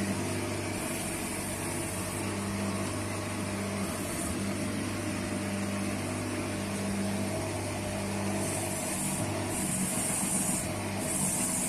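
Electric motor of a workshop machine running steadily with a low hum, with a high hiss that comes and goes several times.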